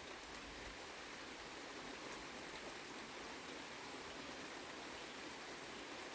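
Steady summer rain falling: an even hiss with scattered faint drip ticks.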